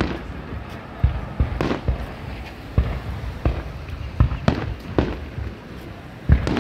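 Aerial fireworks shells bursting in a series of booms, about a dozen sharp bangs at uneven intervals, the loudest near the end.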